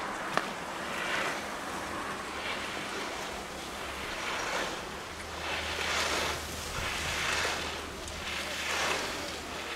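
Slalom skis carving on hard-packed snow, the edges scraping in a swell of hiss at each turn, about every second and a half. A single sharp knock sounds about half a second in.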